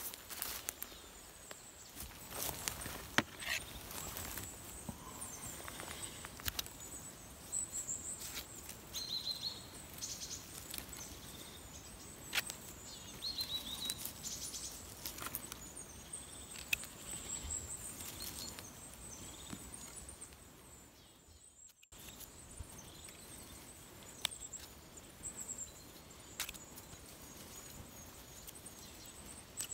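Light rustling and small clicks of hands and a knife working in moss, cutting chanterelle stems and dropping the mushrooms into a plastic bucket, with a couple of faint bird chirps.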